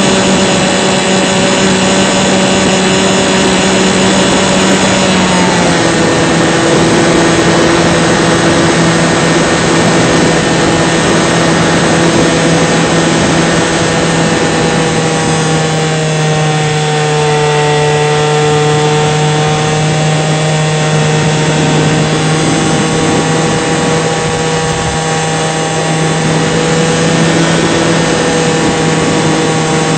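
Radio-controlled model airplane's motor and propeller running steadily, heard from on board the plane. The pitch drops a step about five seconds in, then holds, with a slight dip and rise around the middle.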